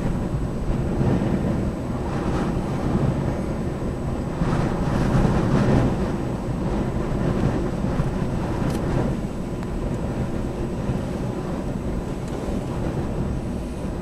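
Gusty wind buffeting the microphone: a steady low rumble that swells in gusts during the first half and eases a little after about nine seconds.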